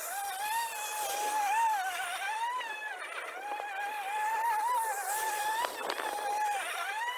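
EGO battery-powered electric lawn mower running, its motor giving a steady high whine whose pitch wavers up and down as the load from the grass changes, over a hiss from the cutting.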